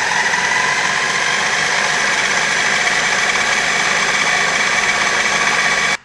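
Countertop food processor motor running at full speed with a steady whine as its blade chops sheets of nori, cutting off suddenly at the end.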